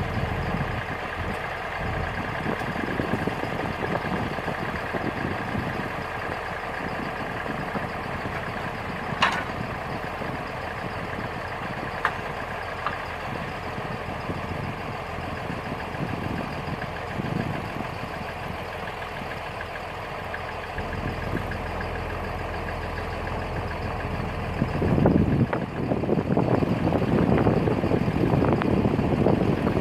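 Tractor engine running steadily at idle, with a sharp click about nine seconds in and a louder, rougher stretch near the end.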